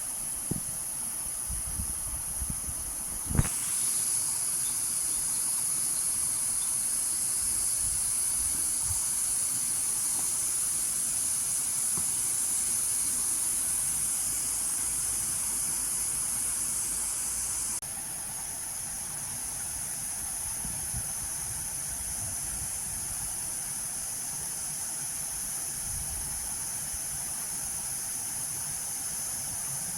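Cicadas droning in a steady high-pitched chorus. It grows louder a few seconds in, just after a sharp click, and drops back abruptly about 18 seconds in. Faint low thumps sound underneath.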